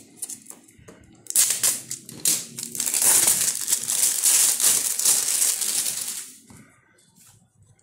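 Plastic shrink-wrap being slit and peeled off a DVD case, crinkling for about five seconds from about a second in, after a few light clicks.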